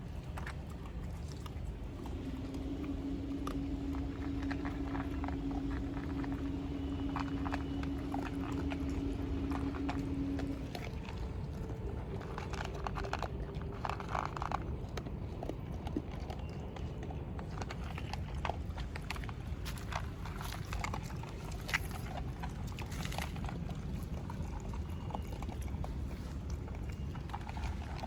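Street dogs eating, with many small clicks and crunches over a steady low rumble. A steady hum comes in about two seconds in and stops about ten seconds in.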